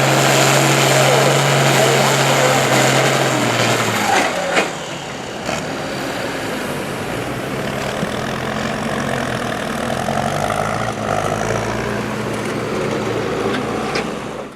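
International 1066 pulling tractor's diesel engine running hard at a steady pitch under load, then backing off about four seconds in to a lower, rougher running sound, with a short sharp knock just after.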